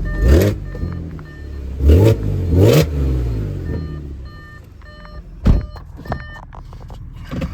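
A 2014 Audi S5's supercharged 3.0 V6 with an APR Stage 2 tune and a resonator delete, idling warm and blipped three times in the first three seconds. Warmed up, the exhaust manifold leak is not heard. About five and a half seconds in there is a single thump, and faint short beeps repeat throughout.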